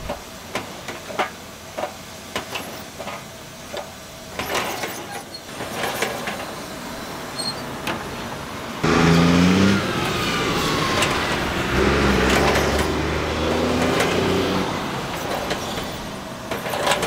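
Light metal clicks and clinks from the egg-bread oven's door and baking tins, then from about nine seconds in a heavy road vehicle's engine running close by, its pitch stepping and a high whine falling away.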